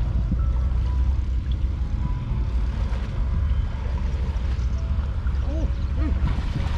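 Steady low wind rumble on the microphone, with a little water splashing and dripping near the end as a woven bamboo scoop basket is lifted out of shallow pond water.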